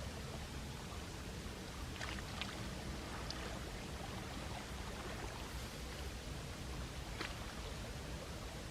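Gentle sea waves washing steadily against the shore, with a few brief sharp splashes or ticks.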